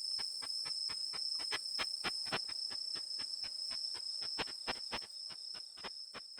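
Unzen sasakirimodoki katydid (Tettigoniopsis ikezakii) singing, its ultrasonic song made audible through a bat detector: steady high tones with sharp clicks about four times a second, fading toward the end.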